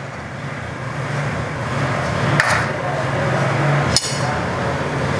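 Metal spoon clinking against a ceramic plate twice while serving rice onto it, over a steady low background hum.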